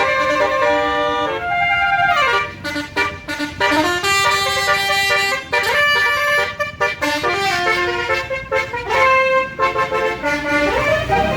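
Bus basuri telolet horn playing a tune of held notes that change in steps, with a falling glide about two seconds in and a rising glide near the end.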